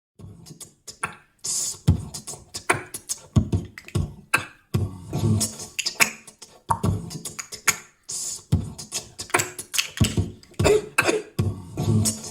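Vocal percussion: a performer beatboxing, deep mouth kick-drum thumps alternating with hissing hi-hat-like bursts in a quick rhythm.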